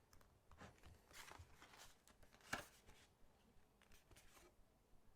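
Faint rustles and scratches of a brass pen and a paper notebook being handled, with a sharper tick about two and a half seconds in.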